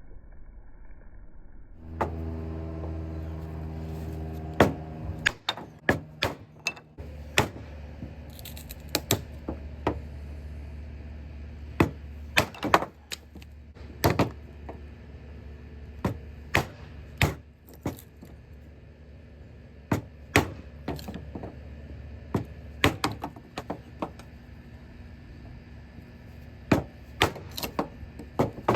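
Dry dead wood being snapped and knocked apart: irregular sharp cracks and knocks, a few every couple of seconds, over a steady low hum that cuts out briefly about five seconds in.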